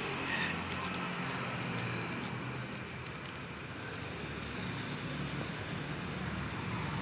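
Steady low background hum and noise with no distinct event.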